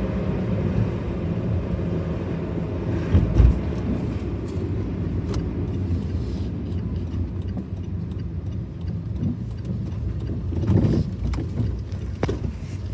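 Road and engine noise inside a moving car: a steady low rumble, with a thump about three seconds in and a couple of lighter knocks near the end.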